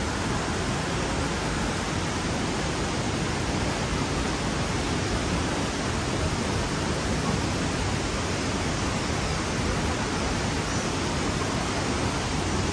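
Kegon Falls, a tall waterfall, heard as a steady, unbroken rush of falling water.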